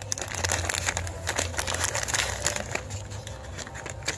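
Clear plastic parts bag crinkling as it is handled, a dense run of small crackles that is busiest in the first couple of seconds and then thins out.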